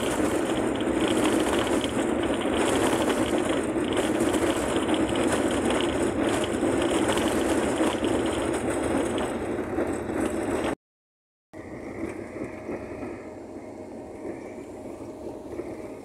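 A VW Kombi driving on a rough dirt road: steady engine and road noise, with a dense rattling from the body. About eleven seconds in the sound cuts out for a moment and comes back quieter.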